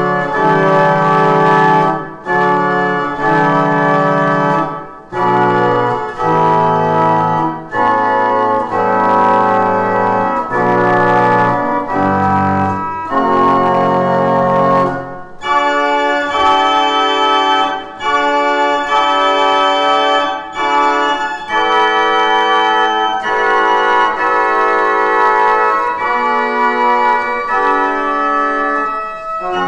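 Historic Telford pipe organ playing slow, sustained chords that change every second or so. About halfway through, the deep bass line drops out and brighter, higher chords carry on.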